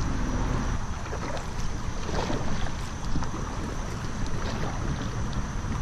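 Wind buffeting the head camera's microphone as a rumble, over the splash and drip of a kayak paddle stroking through calm river water.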